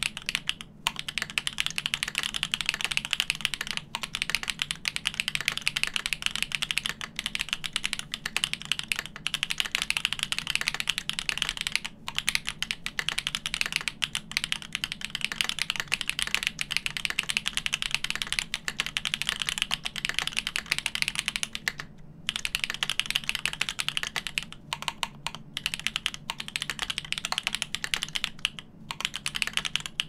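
Continuous fast typing on a GEON F1-8K mechanical keyboard with lubed Everglide Dark Jade Black switches on 60 g springs, a polycarbonate plate and GMK keycaps: a dense stream of key clacks, with brief pauses about twelve and twenty-two seconds in.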